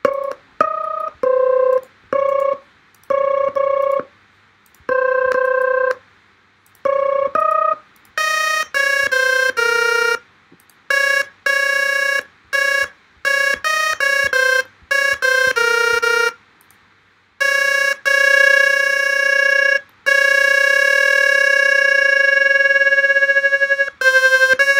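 Blender Audio Nodes software synthesizer played note by note from an iPad MIDI controller, giving clean electronic tones. At first the notes come singly, then in quicker runs from about eight seconds in, and near the end as a few long held notes.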